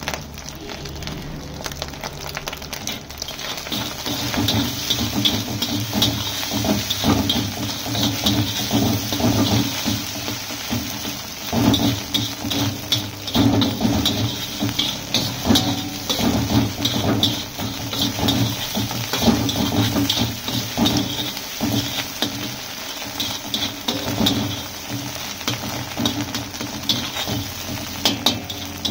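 Long-handled metal spatula scraping and clinking against an iron wok as scrambled egg is stir-fried, over a steady sizzle. The stirring picks up a few seconds in, with frequent sharp clinks.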